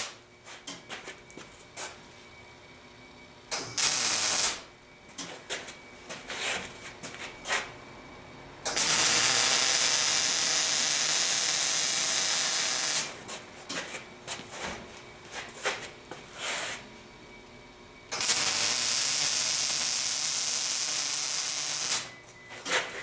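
Electric arc welding of steel nuts onto steel plates: a brief tack about four seconds in, then two steady sizzling welds of about four seconds each. Small clicks and handling noises fall between the welds.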